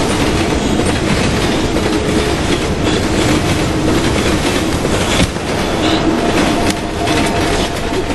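Freight train rolling on the rails: a steady running noise with wheel clatter.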